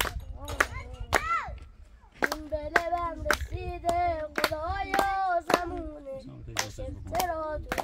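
A child singing in drawn-out, gliding notes over sharp hits that come irregularly, about twice a second.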